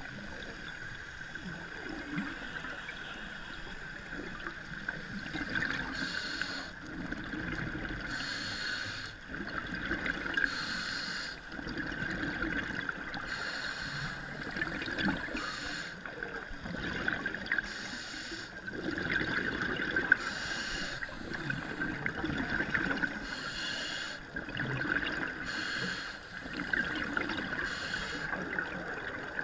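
Scuba breathing through a regulator, heard underwater: a hiss and gush of bubbles every two to three seconds, with bubbly rumbling between, over a steady high hum.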